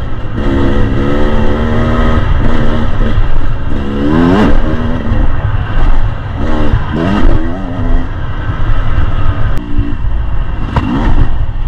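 Dirt bike engine revving up and down as it is ridden, its pitch climbing sharply on the throttle several times, over a heavy wind rumble on the microphone.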